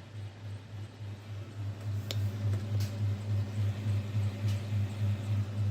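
HP LaserJet Pro M426 printer running with newly replaced fuser drive gears: a steady low drone that pulses about four to five times a second and grows louder about two seconds in, with a few light clicks. The gearbox sounds normal, with the hum and noise of the worn gears gone.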